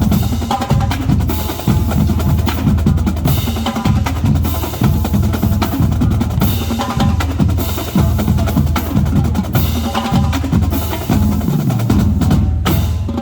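College marching drumline playing a fast, dense cadence: rapid snare drum strokes and rolls over bass drums, with cymbal crashes every few seconds.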